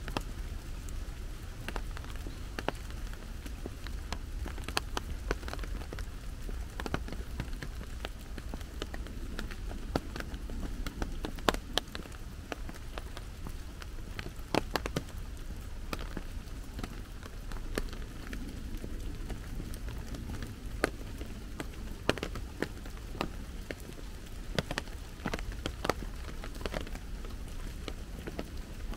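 Steady rain falling, with many scattered sharp drops striking close by over a low, steady rumble.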